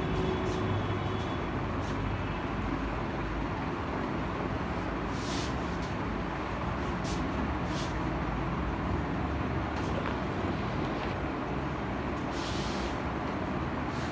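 Steady background rumble and hiss, like road traffic heard from indoors, with a few short hisses on top.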